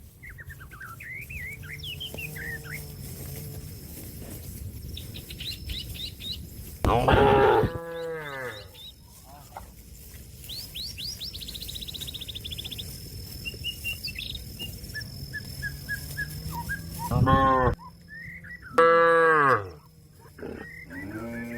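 Domestic cattle mooing: three loud, long moos, about 7 s, 17 s and 19 s in, with fainter low moos between them. A cow calling to another cow. Birds chirp and trill in the background.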